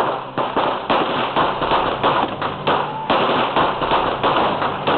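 Gunfire: many sharp shots in quick, irregular succession over a steady noisy background.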